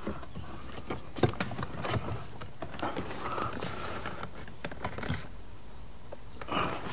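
Plastic trim and clips on a car door panel clicking and scuffing as a handle trim strip is pressed and worked into place by hand: scattered small clicks and scrapes at irregular intervals.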